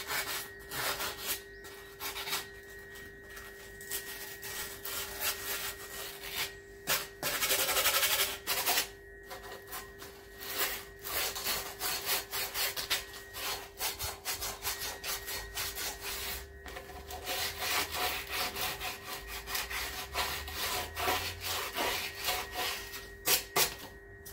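Hand tool scraping and rubbing the flange face of a rusty cast-iron manifold to clean it, in quick irregular strokes. There is a denser run of fast strokes about a third of the way in.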